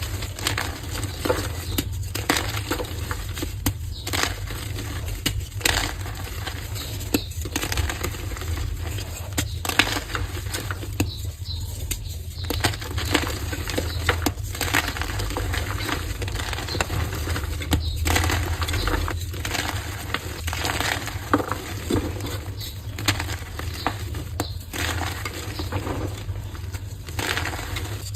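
Heart-shaped blocks of pressed gym chalk being broken and crushed: a continuous run of dry, irregular crunches and crackles.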